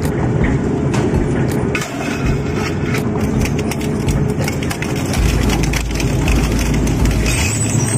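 Heavy industrial crushing machine running with a steady engine drone, while the material fed into it breaks with a rapid run of cracks and snaps. The low drone grows deeper and heavier about five seconds in.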